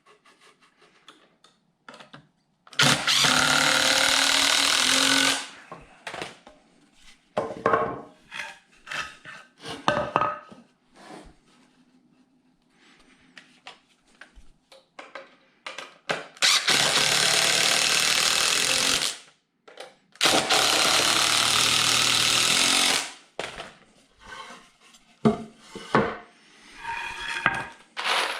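Handheld power drill running in three bursts of about two and a half seconds each, with clicks and knocks of handling between.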